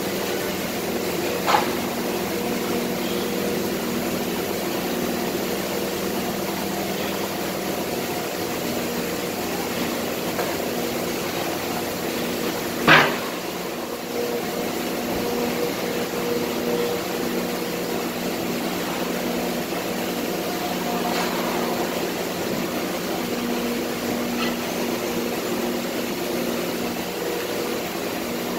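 Steady drone of running plastic injection moulding machinery, with several level hum tones. A sharp bang about 13 seconds in, and a smaller knock about a second and a half in.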